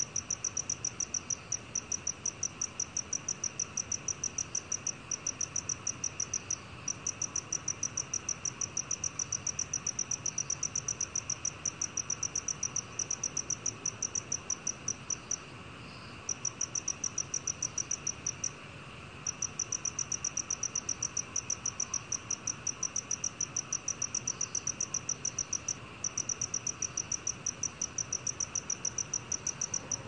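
Black cricket calling at 20 °C: a steady run of short, high-pitched chirps, several a second, broken by a few brief pauses.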